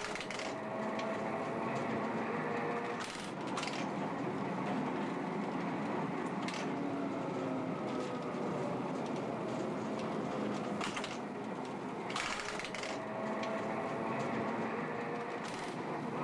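Electric tram running: a steady rattling rumble with a faint motor whine that slowly rises and falls, and a few sharp clacks.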